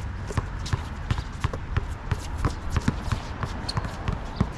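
A basketball bouncing on an outdoor court, with players' footsteps: a quick, irregular string of sharp thuds.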